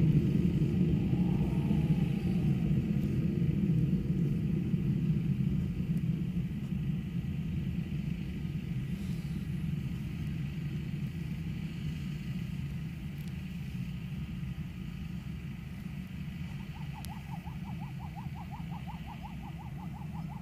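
Shaheen-III missile's solid-fuel rocket motor heard from the ground as a deep rumble that slowly fades as the missile climbs away.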